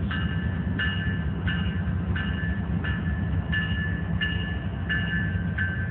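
Railroad grade-crossing bell ringing steadily, about three strikes every two seconds, each strike a clear ringing tone. Under it is a steady low rumble.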